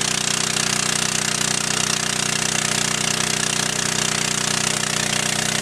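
Gasoline engine of a portable fire pump running steadily, throttled up, under a loud, even hiss of water spraying from a fire hose nozzle.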